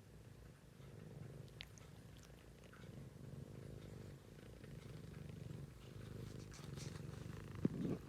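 A pet cat snoring in her sleep: a quiet, low rasping rumble that swells and fades with each breath, with one short louder sound near the end.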